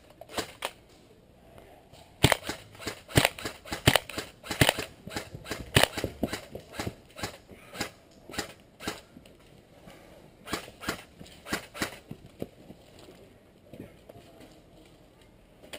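Airsoft gunfire: a run of sharp, irregularly spaced snapping shots for several seconds, then a short group of four or five more shots after a brief pause.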